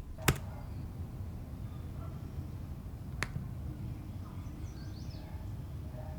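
Two sharp clicks, the first loud about a third of a second in and the second fainter about three seconds in, over a low steady background rumble.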